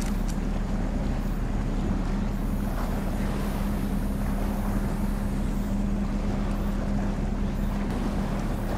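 A ship's engines running with a steady low drone and a constant hum, with wind on the microphone.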